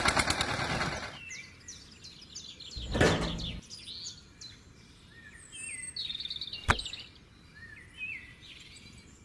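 Birds chirping in the background. A loud rushing noise cuts off about a second in, a dull thump comes about three seconds in, and a sharp click near seven seconds.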